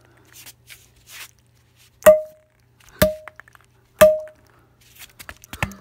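Three hard hammer blows about a second apart, starting about two seconds in, each with a short ringing tone that dies away, as a Lego piece is struck; lighter clattering follows near the end.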